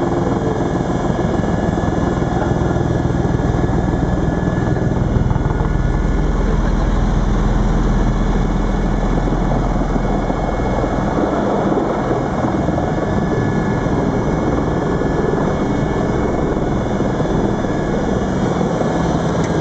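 Helicopter engine and rotor heard from inside the cabin, a steady loud drone; its deep rumble eases off about halfway through.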